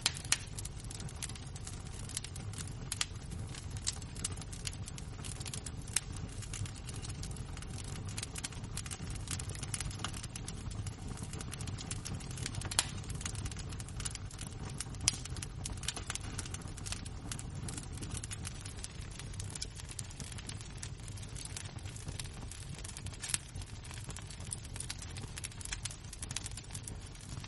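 Burning wood embers crackling: a steady low rumble under a constant scatter of small ticks and snaps, with a handful of louder sharp pops.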